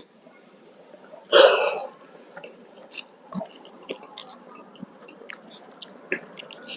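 Close-miked eating: one loud bite about a second and a half in, then chewing with many small wet clicks and mouth smacks.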